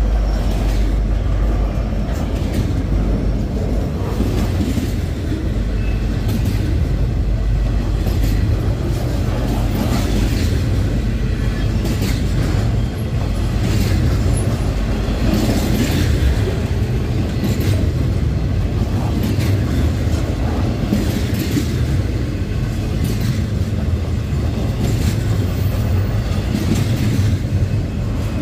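Intermodal double-stack freight train rolling past at close range: a steady heavy rumble of wheels on rail, with irregular clacks and clicks from the wheels on the track.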